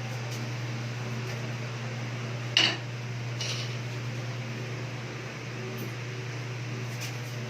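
Two hard clinks, a sharp one about two and a half seconds in and a softer one a second later, over a steady low hum.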